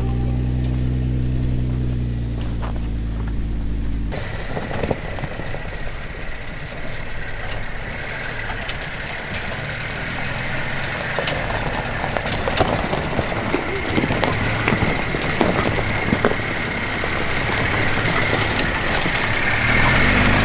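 Jeep Wrangler engine running at a slow crawl on a rocky dirt trail. A steady low engine drone fills the first few seconds. After that, tyres crunch over the dirt and small stones click and pop under them, with the engine running beneath.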